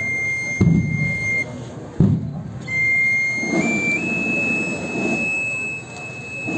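Street noise of a procession crowd, with a couple of sudden low thumps and a steady high-pitched whine that steps up in pitch a few times partway through.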